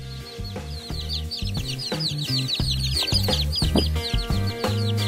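A flock of kampung chicks peeping rapidly and continuously, short falling peeps several a second, over background music with a steady stepped bass line.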